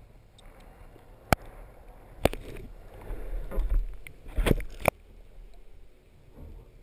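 Underwater handling noise picked up by a speargun-mounted camera: a few sharp knocks and clicks, with water rushing past in the middle as the diver moves, then quieter.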